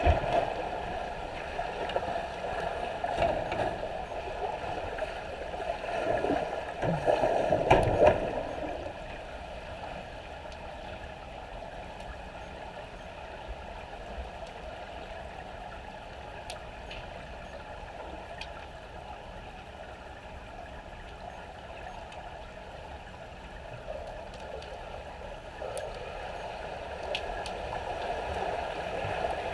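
Swimmers' strokes heard underwater in a pool: muffled churning and splashing for about the first eight seconds as swimmers pass overhead. Then a quieter, steady hiss of water, which rises again near the end as another swimmer approaches.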